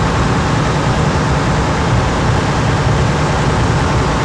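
Steady loud drone of a motor boat under way: engine rumble mixed with the rush of air and water past the hull.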